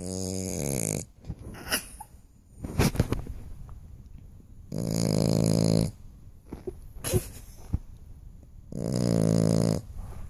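Dog snoring: three loud, drawn-out snores about four seconds apart, each lasting about a second, with quieter breathing between them.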